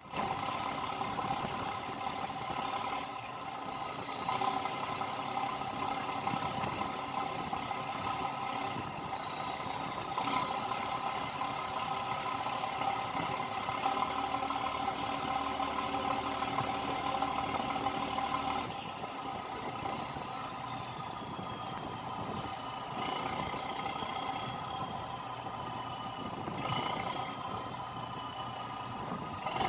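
Fishing boat's engine running steadily under way, with a high whine that wanders in pitch. About two-thirds of the way through the engine eases back and the whine slowly falls.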